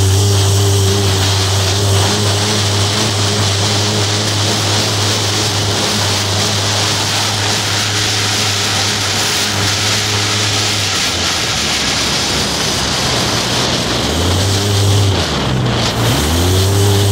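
Polaris RZR 800 side-by-side's twin-cylinder engine running hard at steady high revs on a dirt track, with wind and tyre noise over it. Over the last few seconds the revs fall and climb again as the throttle is eased off and reapplied.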